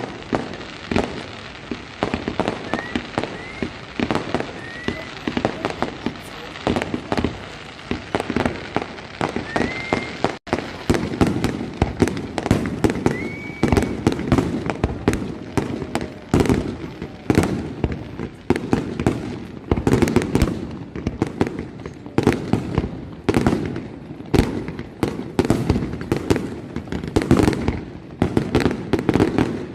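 Fireworks display: a steady stream of bangs from shells bursting overhead, with a few short rising whistles in the first part. A little over ten seconds in, the bursts come faster and louder.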